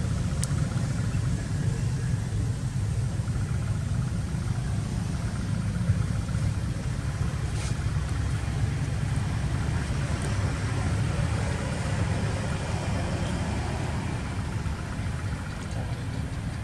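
A steady low engine rumble, as of a motor idling.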